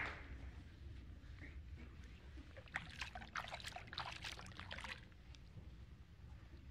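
Faint water splashing and trickling as a person's feet are washed by hand, with a run of small splashes in the middle.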